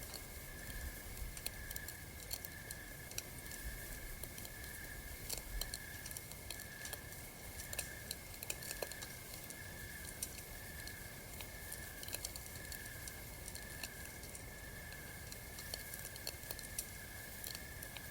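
Campfire crackling: irregular sharp pops and snaps over a soft low rumble. Behind it a high chirp pulses steadily, about one and a half times a second, as part of the night-forest ambience.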